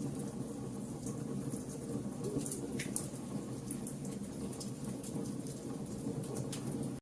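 A fire burning, with a steady low rush and many small crackles and pops scattered through it.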